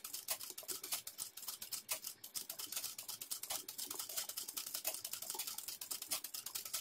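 Domestic sewing machine stitching free-motion embroidery: a rapid, even run of needle-and-mechanism clicks, many a second.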